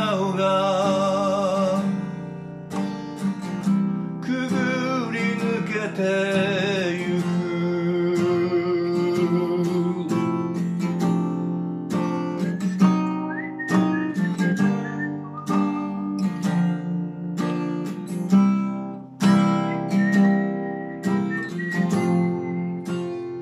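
A man singing a Japanese ballad, accompanying himself on an Asturias steel-string acoustic guitar, picking and strumming chords. His held notes have vibrato in the first few seconds, and the guitar carries on throughout.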